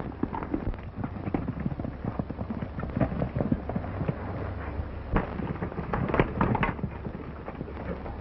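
Several horses galloping, a quick, dense run of hoofbeats with a few sharper cracks about two-thirds of the way in, over a steady low hum.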